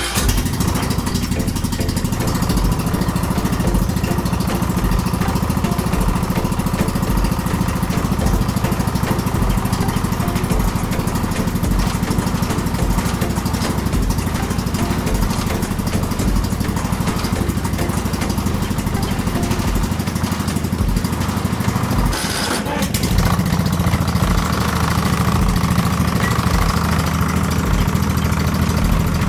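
McCulloch M125-97 ride-on mower's Briggs & Stratton engine running steadily right after catching on its first start after four months of standing. About 22 seconds in the sound breaks briefly, then runs on slightly higher in tone.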